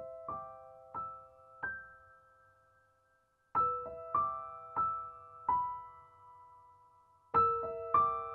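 Background piano music: a slow melody of single notes, each struck and left to ring and fade, in short phrases of about four notes with a brief pause between phrases.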